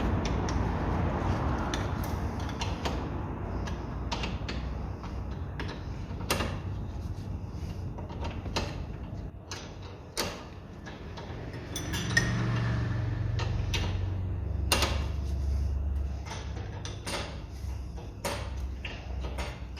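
Metal hand tools clinking and scraping: spanners being fitted and turned on the brake caliper bolts, with irregular sharp clicks of metal on metal. A low hum comes in about twelve seconds in and fades a few seconds later.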